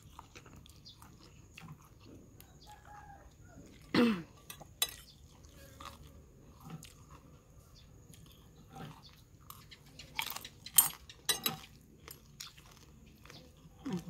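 Close-up eating sounds: chewing and crunching on instant noodles and a crispy fried topping, with small clicks of the utensils. A few sharp, loud crunches come between ten and eleven and a half seconds in.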